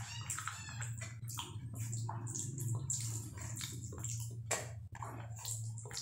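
Close-up wet eating sounds: fingers squishing and mixing rice with dal and curry on a plate, and chewing. The sound is a quick, uneven run of moist clicks and smacks over a steady low hum.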